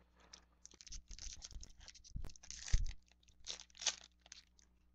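Foil wrapper of a 2014 Topps Chrome jumbo trading-card pack being torn open and crinkled by hand: a run of crackly rips, loudest in the second half.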